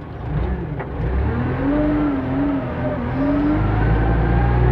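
JCB 3CX backhoe loader's diesel engine running and building up in revs, heard from the cab. Through the middle there is a wavering whine as the front loader's hydraulics lift the bucket, and the engine's hum steadies and grows louder near the end.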